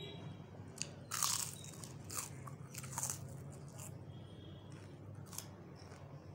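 Prawn chips crunching as they are bitten and chewed, in several separate crunches, the loudest about a second in.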